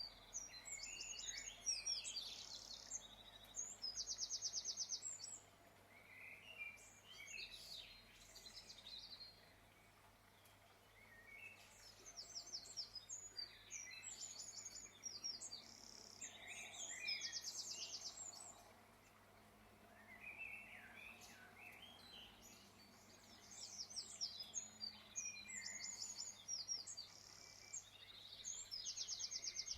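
Birds chirping and trilling in quick, high, rapidly repeated notes, coming in bouts that recur about every eleven seconds, over a faint steady low hum.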